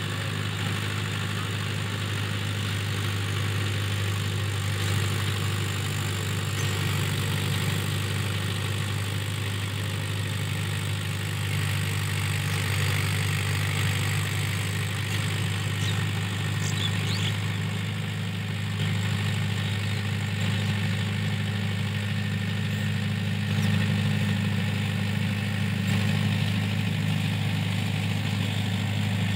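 Mahindra Yuvo Tech+ 585 DI tractor's diesel engine running steadily under load while it pulls a rotavator through the soil.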